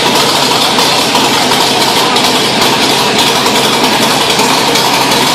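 Chevrolet small-block V8 in a 1967 Camaro running at a steady idle through open headers, loud, with a rapid even pulse of exhaust beats.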